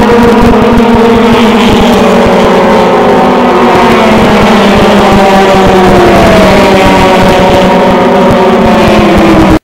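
Several race car engines running at speed around the oval, their tones overlapping, with one note sliding down in pitch about halfway through as a car passes. A heavy low rumble sits underneath.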